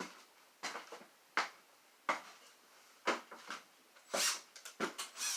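A scatter of short knocks and clicks, about a dozen, coming thicker near the end: the handling noise of tools and hardware while ceiling drywall cleats are taken down.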